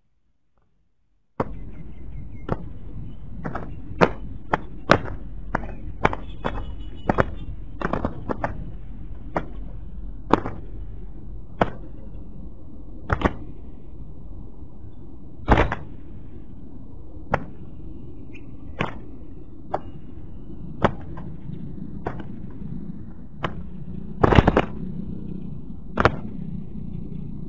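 Irregular sharp clicks and taps, about twenty of them, over a steady low background noise that starts abruptly about a second and a half in.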